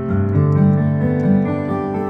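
Instrumental music: acoustic guitar playing a slow, sustained melody of plucked notes over held bass notes.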